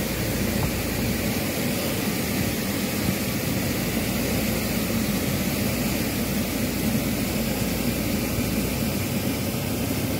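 A 4x4 driving through flowing floodwater about 300 mm deep over a concrete causeway: a steady, loud rush of water around the vehicle over the running engine.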